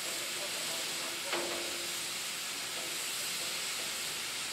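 Steady steam hiss from a stationary GWR 57xx-class pannier tank locomotive, with one short knock about a second in.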